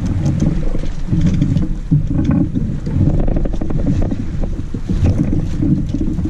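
Wind buffeting the microphone on a sailboat under way: a loud, uneven low rumble that rises and falls without a break.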